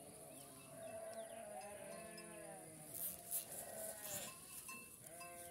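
Goats bleating repeatedly, several drawn-out calls in a row. A few faint clicks of wire being handled on the mesh come about three seconds in.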